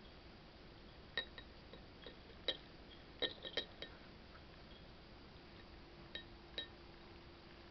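Small round bell on a cat's collar tinkling in short, separate jingles as the cat eats from a dish: single ones early, a quick cluster in the middle, and two more near the end.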